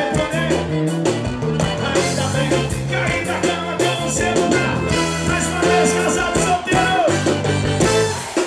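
Live band music with a steady drum beat and bass, and a man singing into a microphone.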